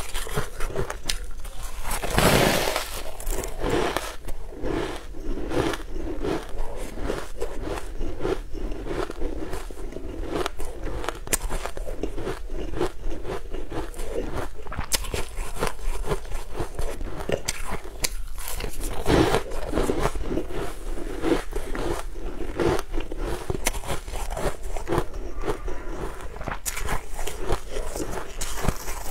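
Bites of crumbly frozen whipped ice being crunched and chewed, with many small crisp crackles as the icy chunks break between the teeth.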